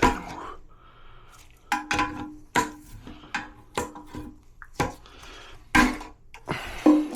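Hard objects knocking and clinking, about eight sharp strikes spread across a few seconds, several leaving a brief ringing tone as of porcelain or metal.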